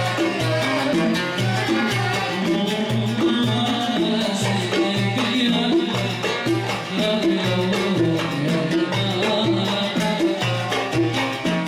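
Music: a song with a steady, repeating bass beat under a dense band accompaniment.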